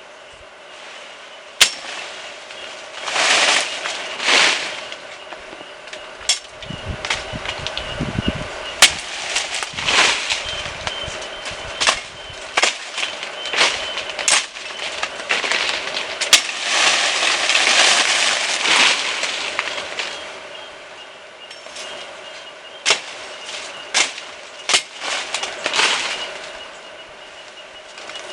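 Pruning tree branches by hand: a series of sharp, irregular chopping strikes on wood, with several longer rustling swishes of leafy branches being pulled or falling.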